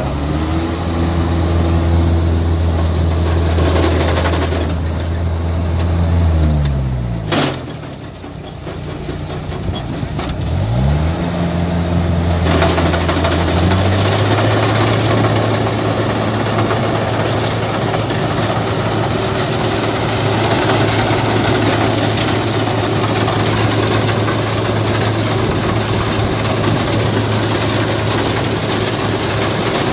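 Kubota DC60 combine harvester's diesel engine revving up and running steadily, then dropping away about seven seconds in with a sharp click. It revs up again about ten seconds in and runs on steadily. From about twelve seconds a broader rushing mechanical noise joins the engine.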